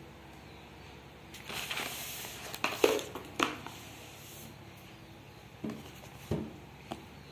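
Paper leaflets and packaging being handled: rustling for about three seconds with two sharp clicks near the middle, then a few light knocks as the tablet is picked up and handled.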